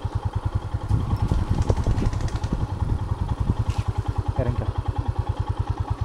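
Royal Enfield Himalayan's single-cylinder engine running at low revs, a steady rapid thumping of about ten to twelve beats a second.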